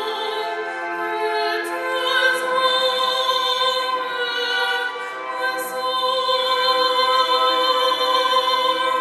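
A young girl's solo singing voice, singing a hymn into a microphone and holding long, steady notes.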